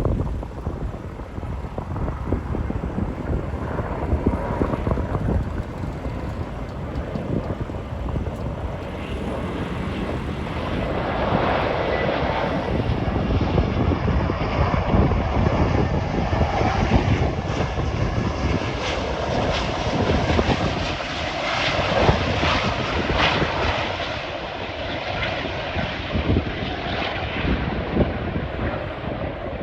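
Airbus A380's four jet engines running as the airliner comes in to land and passes close by. The roar swells about a third of the way in, is loudest through the middle and later part, and eases off near the end.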